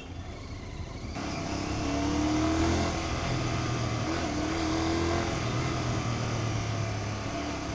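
Royal Enfield Continental GT650's parallel-twin engine on its stock exhaust, under way. The revs rise over the first two or three seconds, then it runs at a steady speed with wind and road noise.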